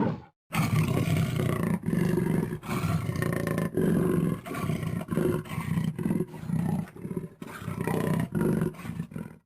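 Draco lion roar sound effect: a long run of short, deep roaring grunts, about one and a half a second, in the pattern of a lion's roaring bout, starting about half a second in and stopping just before the end.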